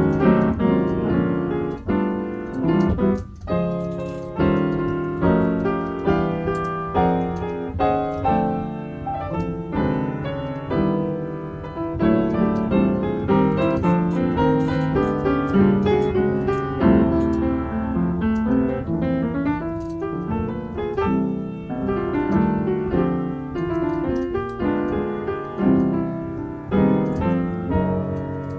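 Solo piano improvising, playing chords under a melody line with continuously changing notes.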